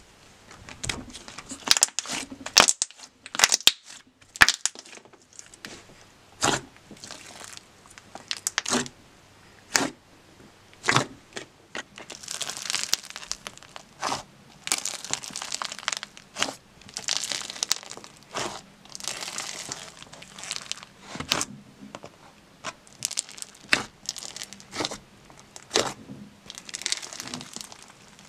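Hands playing with slime, with no talk over it. First a super-thick slime gives sharp, separate pops and clicks as air pockets burst. About halfway through, a floam slime packed with foam beads gives longer stretches of crackling and crunching as it is squeezed, still broken by pops.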